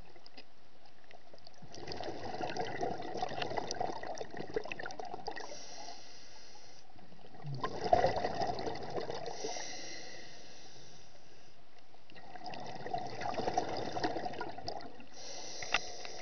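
Scuba diver breathing through a regulator underwater: three bursts of exhaled bubbles about five seconds apart, with a fainter hiss of inhaling between them.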